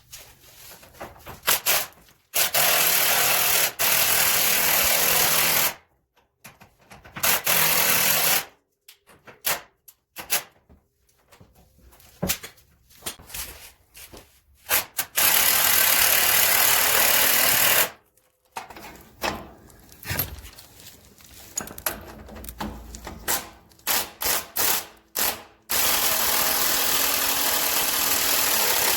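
Impact wrench tightening shock absorber bolts, running in four long bursts of a few seconds each, with short quick blips between.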